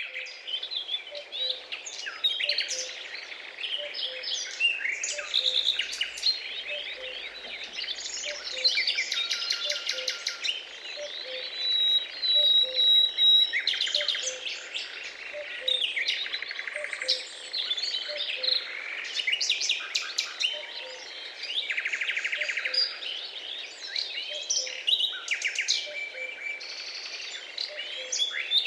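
Many small birds chirping and twittering together in a dense, continuous chorus of short, overlapping calls and trills, with one long steady whistle about midway. A soft low note repeats steadily beneath the chorus.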